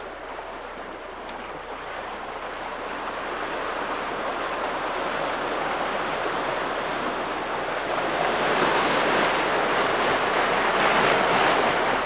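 Seawater churning and surging around shoreline rocks, a steady rush that swells louder about two-thirds of the way through.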